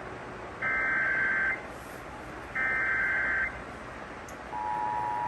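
Emergency Alert System SAME data header: two short, buzzy digital screeches about a second apart. About four and a half seconds in, the EAS two-tone attention signal starts as a steady dual tone. Heard through an AM radio broadcast with static hiss beneath.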